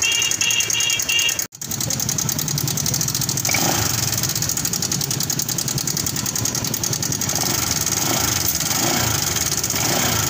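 Honda Vario 150 scooter's single-cylinder engine idling with a fast, even metallic ticking from the top end. It is the typical sign of a failed cam chain tensioner, whose plunger pin the mechanic later finds worn out. The sound cuts out for a split second about a second and a half in.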